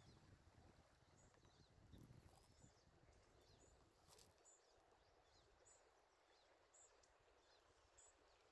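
Near silence: faint room tone with small, faint high ticks about once a second.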